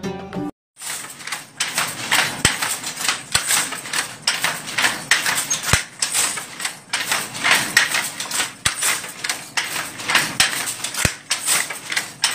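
Handloom clacking in a quick, steady rhythm, about two knocks a second, as the weaver throws the shuttle and beats the weft in with the batten. It starts just under a second in.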